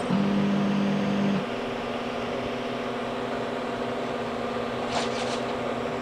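Stepper motors of a Steadytech Mini 3D printer whirring with a steady tone for about a second and a half as the print head moves to the next bed-levelling point, then a quieter steady hum from the printer. A brief scratchy noise about five seconds in.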